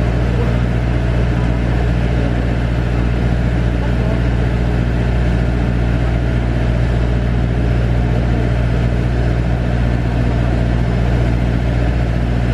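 Steady, loud low drone of airport ramp machinery, an unchanging hum.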